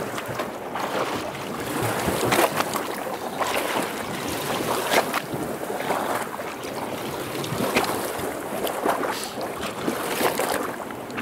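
Small choppy waves lapping and splashing against a boat's hull in uneven slaps, with wind buffeting the microphone.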